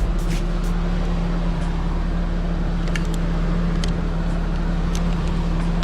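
Nissan 240SX's KA24E engine idling steadily just after a jump start, with a few light clicks.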